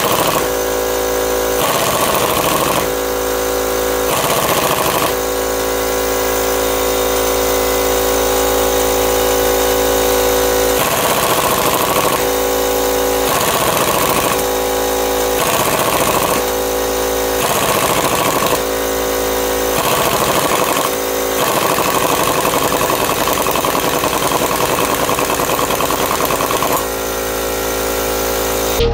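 Impact wrench hammering without a break, driving the forcing screw of a two-jaw puller to draw a stuck bearing race off a wheel hub.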